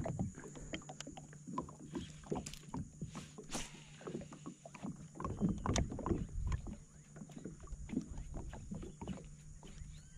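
Irregular light knocks and taps on a plastic fishing kayak, with small water sounds, over a faint steady low hum.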